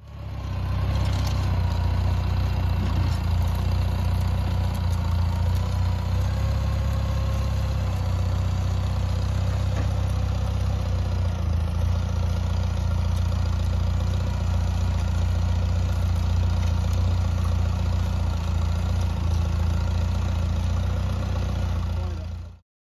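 An engine running steadily at a constant speed with a deep, even rumble, typical of the machine used for plowing the garden.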